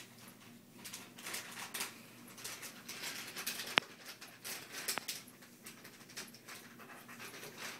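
Soft rustling and scuffling on carpet as a kitten is played with and petted, with the phone rubbing against clothing close to the microphone. Two sharp clicks fall in the middle.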